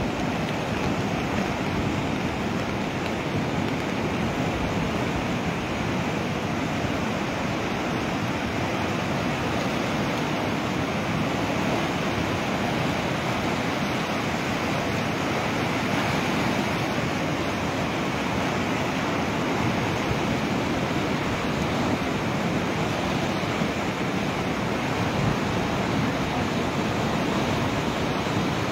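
A muddy river in flash flood rushing past in full spate: a steady, unbroken wash of torrential water. The filmer takes the surge for the result of a cloudburst upstream.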